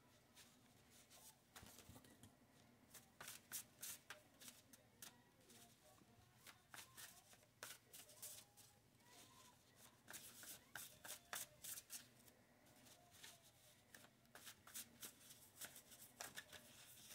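Faint shuffling of a tarot deck by hand: a steady run of soft, quick card clicks.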